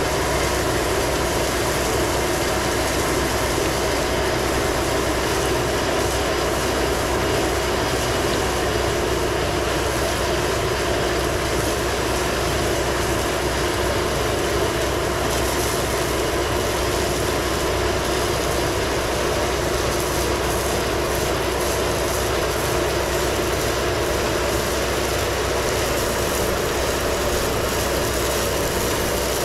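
Stone slinger truck running steadily, its conveyor throwing a continuous stream of 3/4-inch crushed stone that showers onto the gravel trail ramp.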